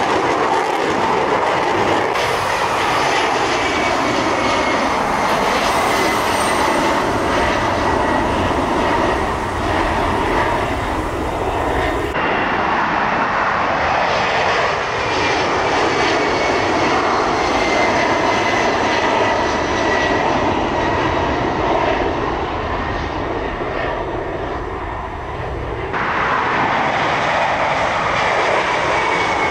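Boeing KC-767A tankers' twin General Electric CF6 turbofans at climb power on departure: a loud, steady jet rumble with a thin high whine sliding slowly down in pitch as each tanker passes. The sound changes abruptly a few times where passes by different tankers are joined.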